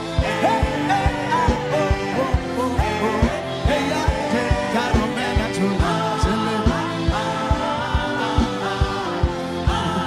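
Worship music: a steady kick-drum beat, about three beats a second, under a sung melody that glides between notes.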